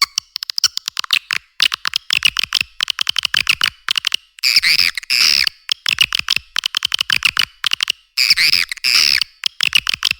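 Swiftlet calls on a lure track: rapid trains of dry clicks alternating with bursts of high, buzzy, warbling twitter. The loudest twitter bursts come about four and a half and eight and a half seconds in. It is a call track used to attract swiftlets to a nesting house.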